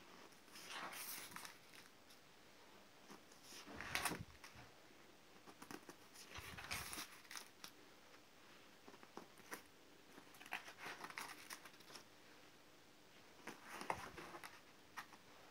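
Scrapbook pages being turned by hand: stiff paper with pasted clippings swishing and rustling against the spiral binding, in several short page turns a few seconds apart.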